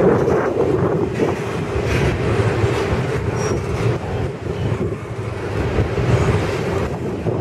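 Double-stack container well cars rolling past at speed: a steady rumble of steel wheels on rail.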